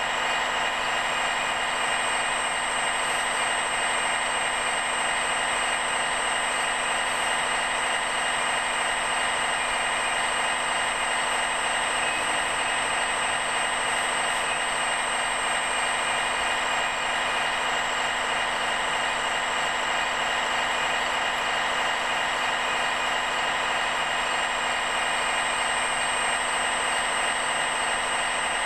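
Hydraulic pump of a radio-controlled scale excavator running, a steady high whine that holds the same pitch as the excavator digs.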